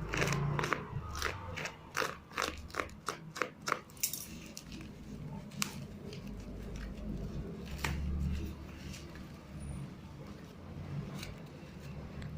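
Packaging being handled and opened: a quick run of crackles and clicks for the first few seconds, then occasional single clicks over a low rumble.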